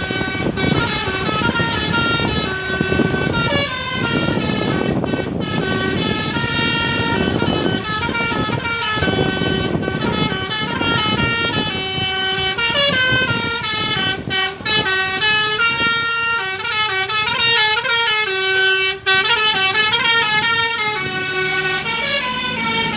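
Telolet basuri multi-tone bus horn playing a continuous melody, its notes stepping up and down in quick succession, over a low rumble.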